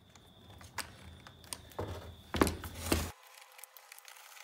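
Small metal and plastic parts of a Stihl 036 chainsaw being handled as the carburettor is fitted back in place: a handful of short, sharp clicks and light knocks, spread over the first three seconds.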